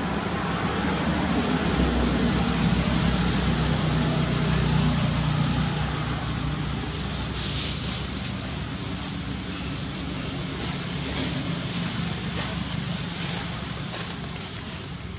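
Outdoor background noise: a steady low rumble that fades through the first half, with short high-pitched buzzing pulses repeating about once a second from about seven seconds in.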